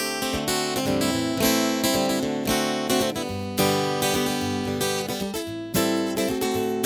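Acoustic guitar strummed, chords struck and left ringing.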